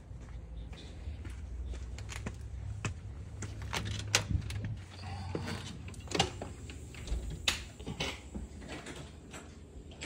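A low rumble of wind on the microphone for the first few seconds, then a series of sharp clicks and knocks from a house door being opened and shut.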